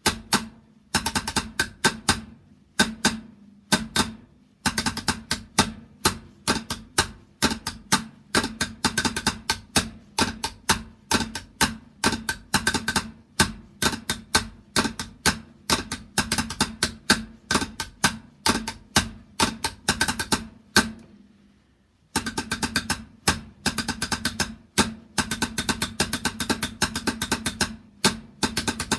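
A drum played with sticks in fast strokes and rolls, the strikes sharp with a ringing drum head, breaking off for about a second near the three-quarter mark before starting up again.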